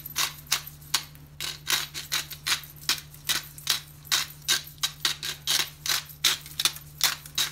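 Black pepper being dispensed from its container, giving an even run of sharp clicks, about four a second, over a steady low hum.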